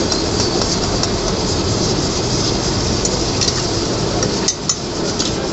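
Chicken karahi frying in oil over a gas burner, a steady noisy roar of flame and sizzling, with long iron utensils clinking and scraping against the aluminium pot as the chicken is stirred.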